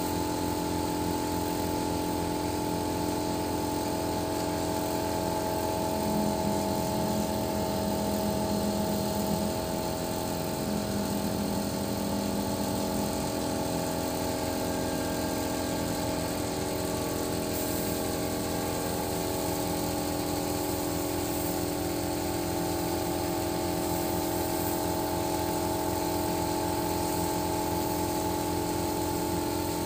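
Boom truck's engine running steadily at idle, an even low throb under a constant hum; a slightly higher tone joins in for several seconds from about six seconds in.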